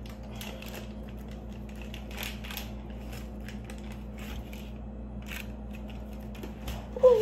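Plastic food packaging crinkling and crackling in irregular bursts as it is handled and pulled open by hand, over a low steady hum. A short wavering pitched sound comes right at the end.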